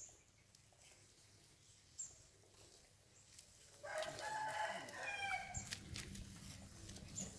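A rooster crowing once, starting about four seconds in and lasting a couple of seconds, over a quiet background with a few faint, high, short chirps.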